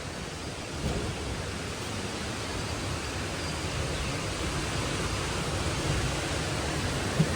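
Strong wind rushing over the microphone, a steady noisy rumble, with rough lake waves likely mixed in.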